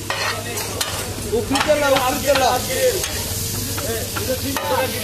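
Chopped chicken chaap sizzling on a large flat metal griddle while a metal spatula stirs and scrapes it, knocking against the griddle again and again. The stirring is busiest and loudest between about one and a half and three seconds in.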